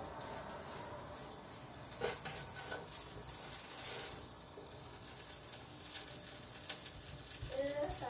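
Diced potatoes and carrots frying in oil in a pan, a steady sizzle, with a few short knocks of the spatula.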